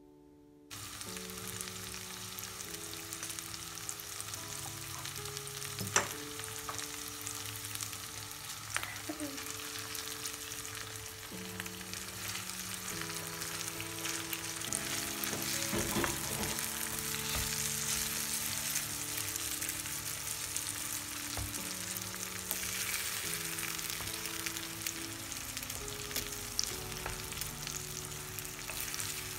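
Food sizzling in a frying pan, starting suddenly about a second in, with a few sharp utensil clicks along the way. Soft background music with slow held notes plays underneath.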